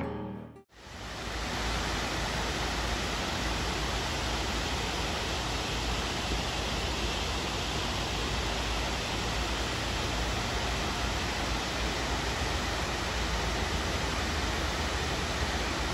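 Water pouring over a concrete dam spillway onto rocks, a steady, even rush. Music fades out about half a second in, before the rush begins.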